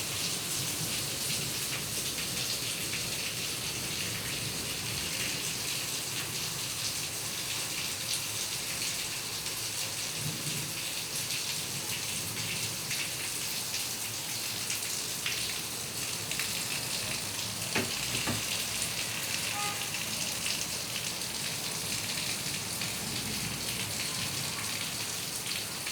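Heavy rain falling steadily, an even hiss, with one sharp tap about two-thirds of the way through.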